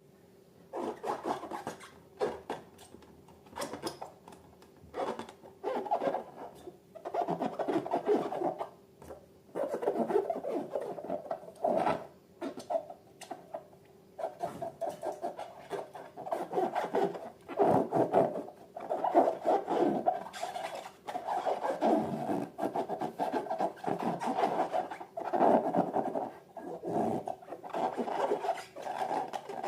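Rubber balloons being rubbed and squeezed by hand, giving irregular bursts of rubbing squeaks with short pauses between them.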